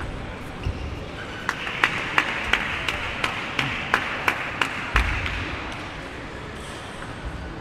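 Table tennis rally: a celluloid ball clicking off paddles and table about three times a second, a dozen or so hits, then stopping about five seconds in, over a steady murmur in the hall.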